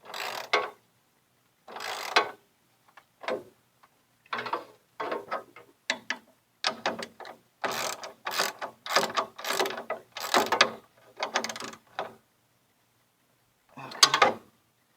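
Hand ratchet clicking in short back-and-forth strokes as a bolt is tightened down, in irregular runs with pauses and one last burst near the end.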